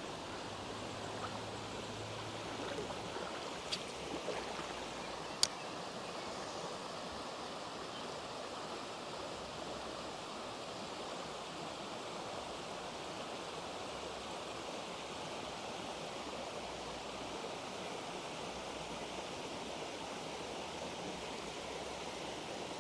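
Steady rush of running creek water, with a couple of short, sharp clicks a few seconds in.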